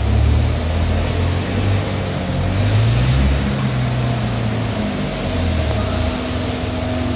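An engine running, its pitch rising and falling, over a steady rushing noise.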